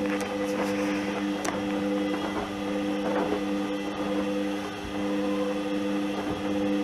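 Hoover A59 washing machine's motor running with a steady hum and a few light clicks.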